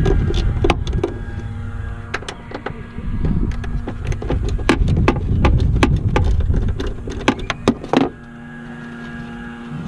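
Hand tools clicking and clinking on metal as 10mm bolts are undone: irregular sharp clicks and knocks over a steady low hum, stopping about eight seconds in.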